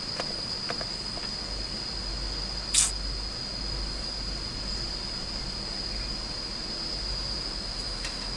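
Insects droning steadily on one high note, with a low rumble beneath and one short sharp click-like noise about three seconds in.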